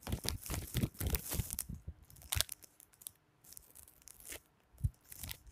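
Mini Oreo cookies being bitten and crunched: a dense crackle for about two seconds, then a few separate crunches.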